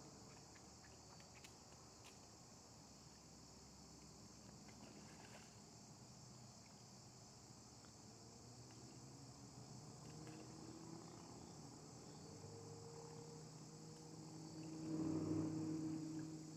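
Faint, steady high-pitched chirring of insects. A low drone swells and fades near the end.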